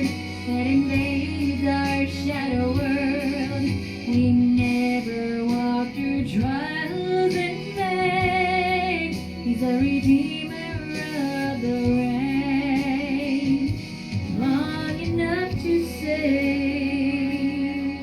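A woman sings a Christian worship ballad over a karaoke backing track, holding long notes with vibrato.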